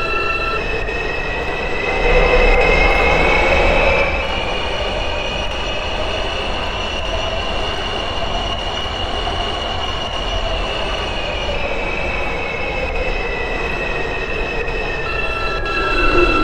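New York City 5 subway train running between stations, heard from inside the car. Its motors whine, rising in pitch as it speeds up, holding steady, then falling as it slows near the end, over the rumble of the wheels on the track.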